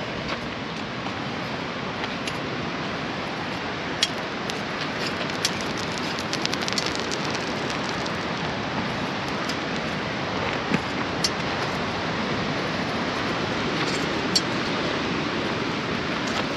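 A steady rushing hiss of wind and sea surf, with footsteps on sand and loose pebbles. A handful of sharp crunches or clicks stand out now and then.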